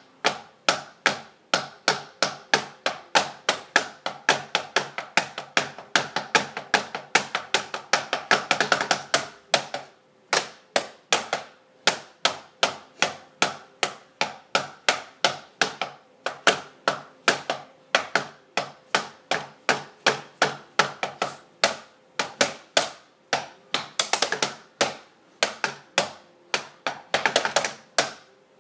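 Drumsticks drumming on a hard surface: sharp strikes at several a second, with fast rolls about eight seconds in and twice near the end.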